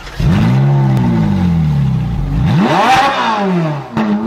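Car engine revved twice, the revs climbing quickly and falling away slowly each time, with another rev starting near the end.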